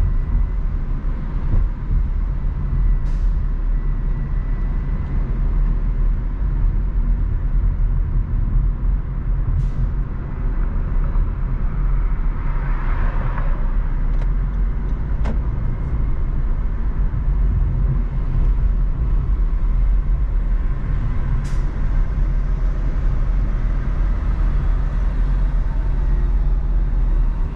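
Steady low road and engine rumble of a car driving through city traffic, heard from inside the car. A few faint ticks and a brief hiss about thirteen seconds in.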